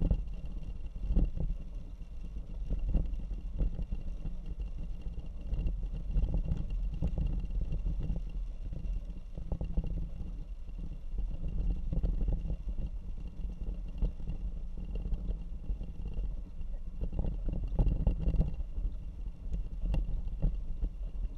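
Hummer H3 driving along a wet gravel road: a steady low rumble of engine and tyres, broken by frequent knocks and rattles from the rough surface, louder for a moment about a second in and again near the end.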